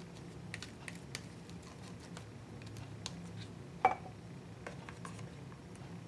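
Faint taps and light clicks of hands handling and pressing embossed paper pieces onto a book cover, with one sharper click about four seconds in, over a low steady hum.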